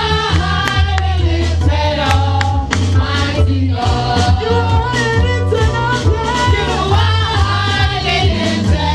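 Live gospel praise and worship music: a woman leads the singing, with backing vocalists, over a band with a heavy bass line and a steady drum beat.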